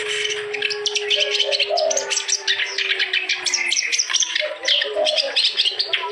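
A kerak basi, a reed warbler, singing a fast, continuous, chattering song of rapid harsh notes.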